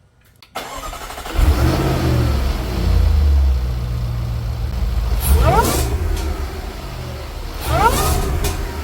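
Jaguar F-Pace SVR's supercharged 5.0-litre V8, fitted with an aftermarket Mina Gallery cold air intake, starting about half a second in and settling to a steady idle. It is then revved twice, each blip carrying a rising supercharger whine.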